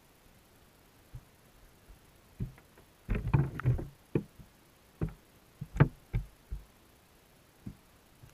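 Dull knocks and taps, heard underwater through a GoPro's waterproof housing, as fish in a wire minnow trap bump against the camera and the mesh. A quick run of knocks comes about three seconds in, then single knocks spread over the next few seconds.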